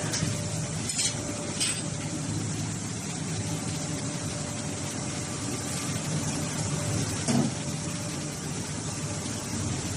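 Hydraulic baler's power unit, a motor and hydraulic pump, running with a steady hum, with a few short knocks, the loudest about seven seconds in.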